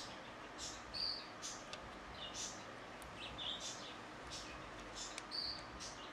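Faint, irregular small clicks, taps and brief high squeaks from handling the small plastic parts of a camcorder lens assembly, a few each second.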